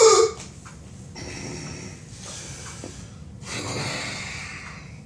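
A man's loud, exaggerated hiccup: a sharp vocal yelp falling in pitch right at the start. It is followed by three long, heavy breaths.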